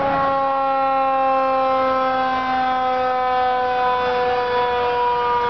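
A siren sounding one long, steady tone that slowly falls in pitch.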